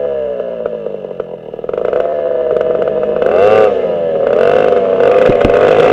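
Racing kart's twin West Bend 820 two-stroke engines running hard, the pitch dipping and then climbing again about halfway through, growing louder after about two seconds.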